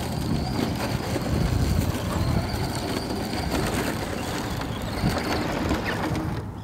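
The brushed electric motor and drivetrain of a Traxxas 1/10 Ford Fiesta ST Rally RC car whine at high pitch as it drives fast on dirt, the pitch rising and falling with the throttle. Heavy wind rumbles on the microphone throughout.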